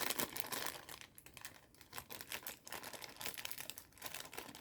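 Packaging being handled as a wristwatch is unwrapped: a run of irregular light crinkles, rustles and small clicks.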